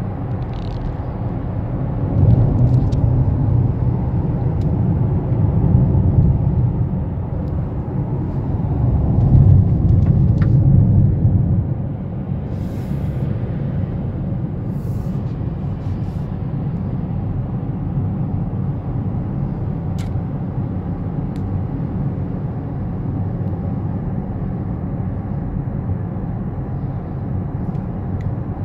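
Cabin noise inside a 2019 Honda CR-V Hybrid driving on a motorway at about 60 to 90 km/h: a steady low rumble from the road and drivetrain. It swells louder twice in the first half, then settles to an even, quieter level.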